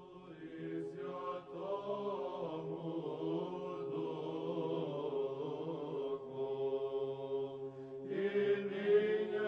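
Slow chanting voices singing a melody over a held low drone note, in the style of Orthodox liturgical chant.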